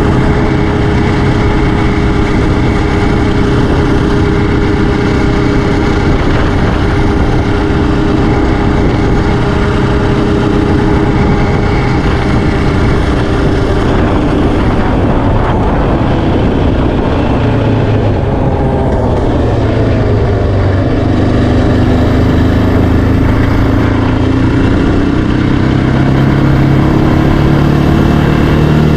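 Yamaha Raptor 700R ATV's single-cylinder four-stroke engine running under way, holding a steady pitch, then breaking off about halfway through and coming back lower before climbing steadily as it speeds up.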